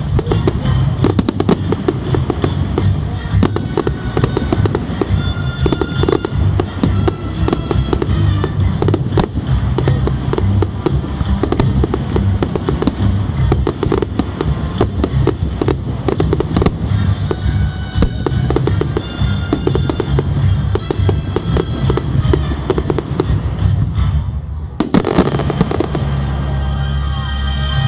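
Fireworks display: a dense, continuous barrage of bangs and crackling bursts, with a heavier flurry near the end, over film theme music playing in the background.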